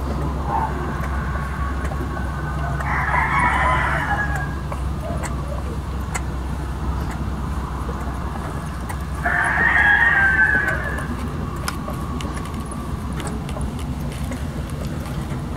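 Newborn husky puppies crying in high-pitched squeals: two long cries, about three seconds and ten seconds in, each lasting over a second, over a steady low hum.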